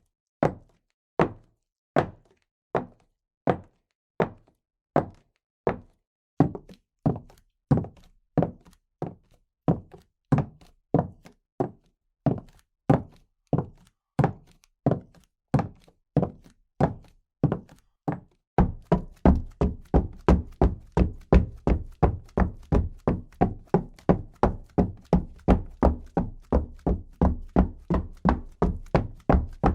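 Footsteps, each a separate thunk on a hard surface, in an even walking rhythm of about two steps a second. About 18 seconds in the pace quickens to about three steps a second, and the steps become heavier and deeper.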